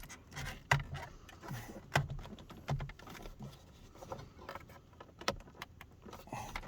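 Scattered light plastic clicks and knocks from a BMW 523's instrument cluster being wiggled side to side and worked out of the dashboard past the steering wheel.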